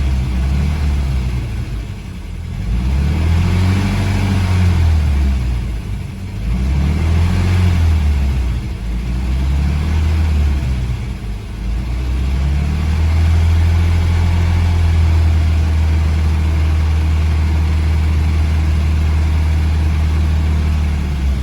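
GAZ-M20 Pobeda's four-cylinder side-valve engine, warmed up with the coolant hot during a cooling-system flush, revved up and down several times, then held at a steady raised speed for about the last nine seconds.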